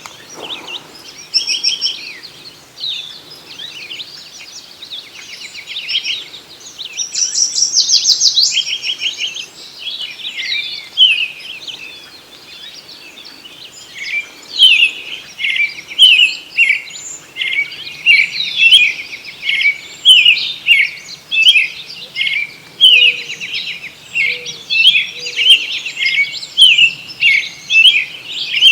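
Several birds singing and chirping together, with a fast trill about a quarter of the way in, then a long run of loud, quickly repeated chirps through the second half.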